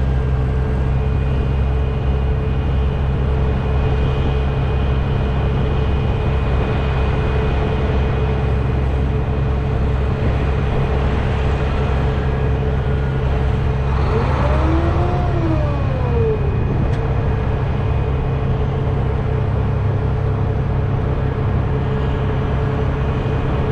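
Mack truck's diesel engine idling steadily with a low hum. About two-thirds of the way through, a brief whine rises and then falls in pitch over it.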